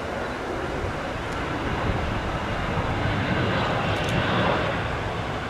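McDonnell Douglas MD-81 airliner's rear-mounted Pratt & Whitney JT8D turbofans, a steady rushing jet noise that swells a little about three and a half seconds in and eases toward the end.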